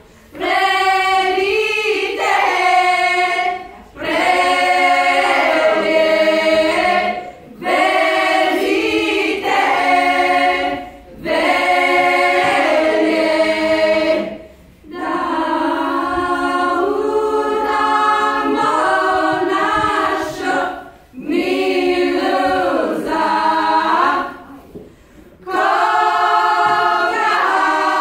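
Women's folk choir singing a Croatian folk song a cappella, several voices at once, in phrases of three to four seconds broken by short pauses for breath.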